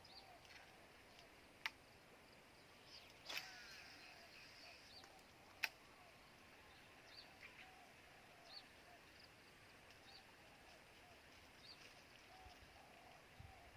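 Faint outdoor field ambience with short chirping calls repeating throughout and three sharp clicks, about two, three and a half and five and a half seconds in.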